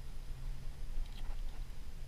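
Faint wet squishing and scraping of a knife cleaning out a gutted blacktip shark's body cavity, a few short scrapes about a second in, over a steady low hum.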